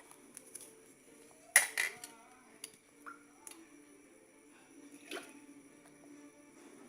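Several sharp clicks and taps, the loudest about one and a half seconds in, over a faint child's voice.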